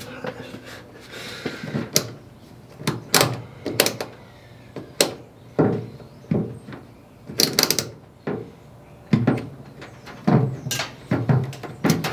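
Irregular knocks and clicks of hand work in a car's engine bay: tools, wires and parts being handled and set down against metal, a dozen or so sharp strikes spaced unevenly.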